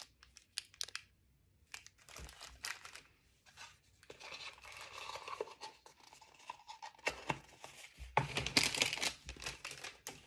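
Small clear plastic jewelry bags crinkling and being torn open by hand, in irregular bursts, the loudest about eight seconds in.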